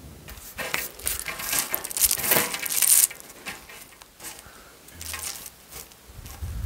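Sunflower seeds being rubbed out of dried sunflower heads by hand and falling onto a table: a dense rattle of many small clicks for the first three seconds, then scattered clicks.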